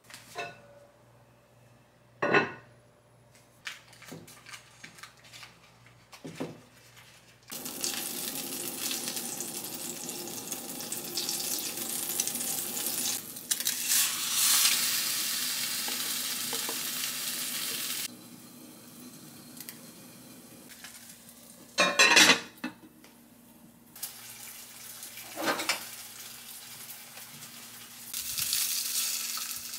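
Food frying in oil in a frying pan. A few knocks and clinks of cookware come first, then sizzling starts about seven seconds in and eases about halfway through. A loud clatter of cookware comes about 22 seconds in, and the sizzling swells again near the end.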